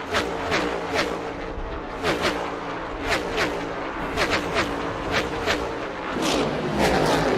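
NASCAR Next Gen race cars' V8 engines at racing speed, several cars going by one after another with the pitch of each dropping as it passes.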